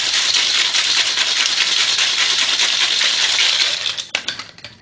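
Ice rattling hard and fast inside a Boston shaker (stainless steel tin capped with a mixing glass) as a cocktail is shaken. The shaking stops near the end and gives way to a few sharp knocks.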